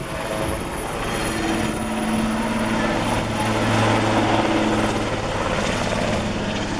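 Eurocopter AS332 Super Puma helicopter flying low overhead: the steady whir of its main rotor and turbines, with the low drone growing louder around the middle of the pass.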